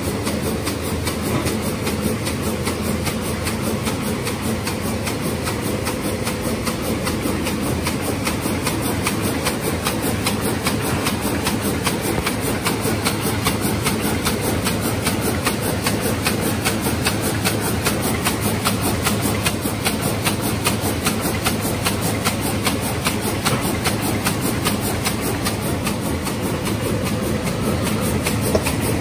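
Twin-lane paper hamburger-box forming machine running at speed. Its feeders, folders and rails make a fast, even clatter of many strokes a second over a steady motor hum.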